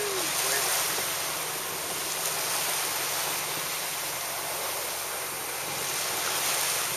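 Steady rush of wind and choppy sea water, even throughout with no distinct splash or impact.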